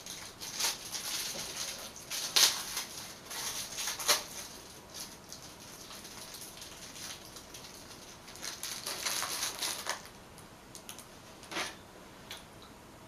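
Plastic wrapping crinkling and crackling as packaged food is handled and unwrapped. It comes in bursts, busiest in the first few seconds, again about nine seconds in and once more briefly later.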